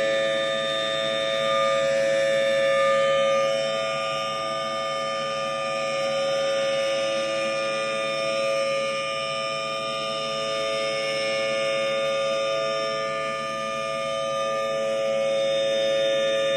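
Federal Signal Thunderbolt 1000T civil-defense siren sounding a steady wail, holding one pitch made of a few close tones. Its loudness swells and fades every few seconds.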